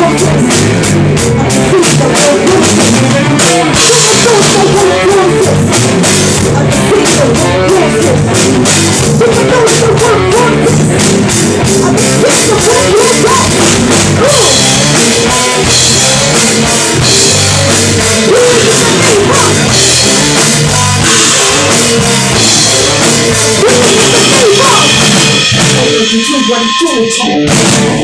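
Rock band playing loud in a small rehearsal room: drum kit and electric guitars, with a woman singing into a microphone. The band stops about two seconds before the end, leaving only stray ringing notes.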